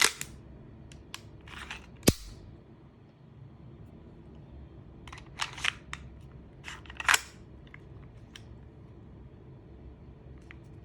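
M1911 Nighthawk gas blowback airsoft pistol firing a few sharp cracks, the loudest about two seconds in and around seven seconds, with a cluster of snaps near the middle and lighter clicks in between.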